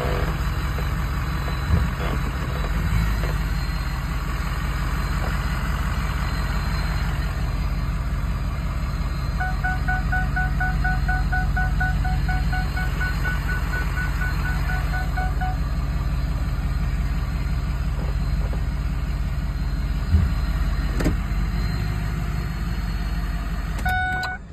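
Ford F-350 pickup's engine idling steadily, heard from inside the cab, with a dashboard warning chime ringing rapidly, about four tones a second, for several seconds in the middle. Near the end the engine is switched off and the drone stops suddenly.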